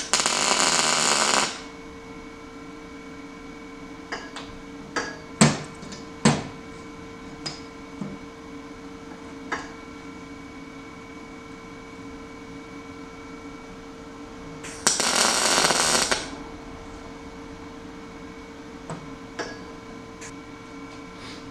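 Two MIG tack welds from a Lincoln Power MIG 210 MP running on a 110 V outlet, joining exhaust tubing: two arcs of about a second and a half each, one at the start and one about fifteen seconds in. Between them come a few short knocks and clicks, over a steady hum.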